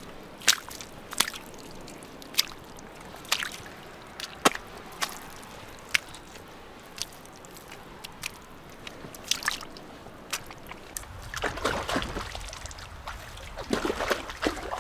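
Hands digging in wet, sticky mud: separate sharp wet squelches and smacks every second or so, then longer spells of squelching about eleven seconds in and again near the end.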